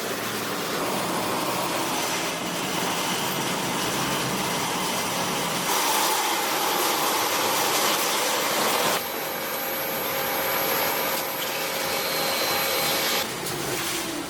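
Sheet-metal coil line running: a continuous mechanical rush with thin steady high tones over it. The sound changes in steps, louder and brighter about six seconds in, shifting again about nine seconds in, and dropping back near the end.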